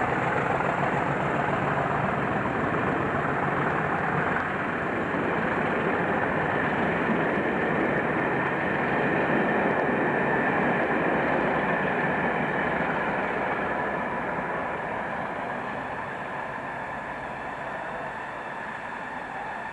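Class 50 diesel-electric locomotive 50001 Dreadnought pulling away with a passenger train, its English Electric 16-cylinder engine under power with a steady whine over the noise. The sound fades gradually over the last few seconds as the train draws away.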